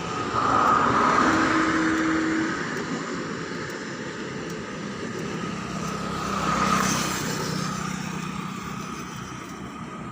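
Motor vehicles passing over a steady rushing noise, swelling loudest about a second in and again near seven seconds.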